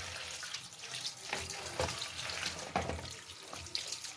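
Tap water running onto cut carrots in a plastic colander, splashing as hands rub and turn the pieces, with a few irregular soft knocks.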